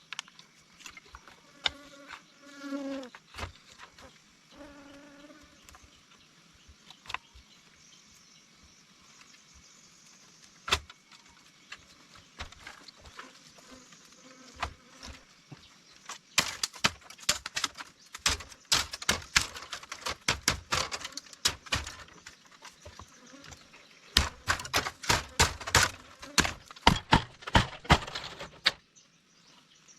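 An insect buzzing close by, twice in the first few seconds, then long runs of rapid sharp clicks and knocks.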